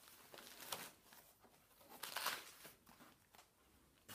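Faint paper rustling as sheets are handled, in two spells, the louder one about two seconds in, with a few light clicks.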